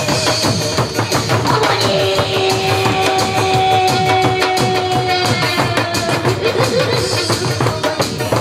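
Large Korean barrel drums (buk) beaten hard with wooden sticks in a fast, dense ensemble rhythm. A held note sounds over the drumming from about two seconds in until about five seconds in.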